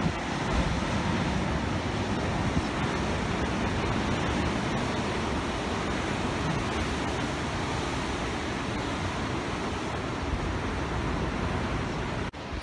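Steady roar of heavy surf breaking below sea cliffs, with wind buffeting the microphone. It cuts off suddenly near the end.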